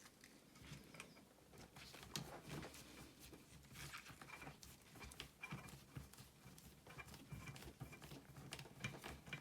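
Faint, irregular small clicks and taps of hands working on a hair straightener's plastic housing while a small black screw is fitted to the cable cover.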